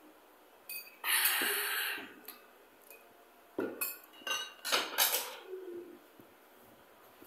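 A cooking pot and dishes clattering on a tabletop: a loud scraping rattle lasting about a second, then a run of knocks and clinks, some leaving a short ring.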